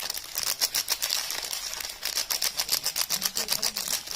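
Rapid, crisp tapping and clicking from hands working soap and its packaging, several clicks a second, with a short lull about two seconds in.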